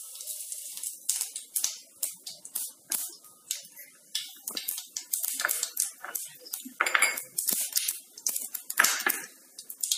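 Cumin seeds crackling and spitting in hot oil in a kadhai, a tadka tempering: a light sizzle, then many quick irregular pops.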